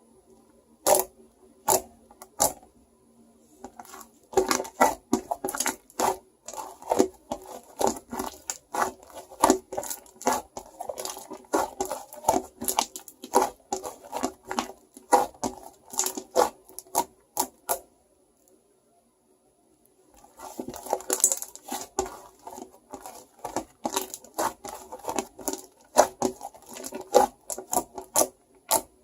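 Shaving foam being squished and pressed by hand, giving dense irregular sticky pops and crackles, with a pause of about two seconds in the middle.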